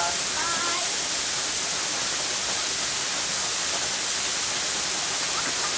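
Steady rushing of a waterfall close by, an even hiss of falling water.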